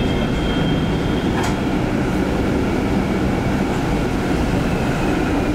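1960 PCC tram running along the track, heard from aboard: a steady rumble with one sharp click about a second and a half in.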